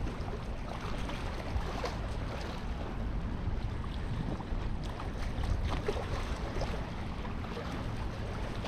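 Wind buffeting the microphone as a steady low rumble, with faint scattered ticks.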